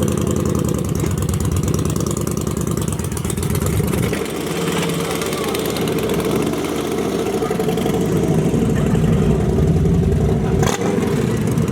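Motorcycle engines running as the bikes move off, a steady low engine note that dips about four seconds in, with a sharp click near the end.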